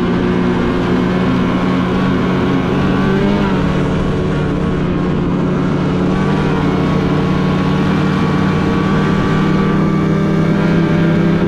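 Polaris 9R Khaos snowmobile's two-stroke engine, fitted with an RPM titanium chambered muffler, running at a steady cruising speed; its drone holds an even pitch and level.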